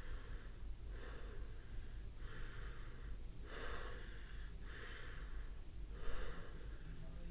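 A person breathing heavily close to the microphone, about six hissy breaths in a row, evenly spaced.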